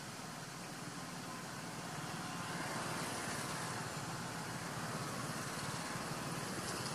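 A motor vehicle engine running steadily, a low hum that grows a little louder about two and a half seconds in.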